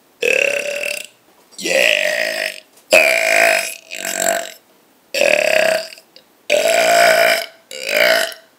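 A person burping loudly: seven short burps in a row with brief pauses between them.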